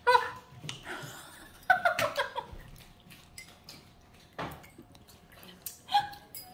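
Metal chopsticks clicking and clinking against a stainless steel bowl during eating, with a girl's short exclamation at the start and a brief giggle about two seconds in.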